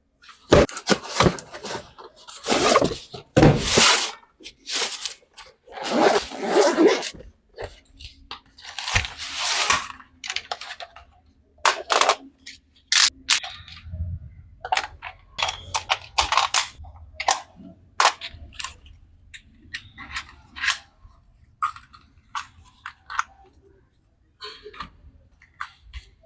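Drone packaging being handled and opened: irregular crinkling, rustling and tearing of plastic and cardboard, with small knocks, busiest in the first ten seconds.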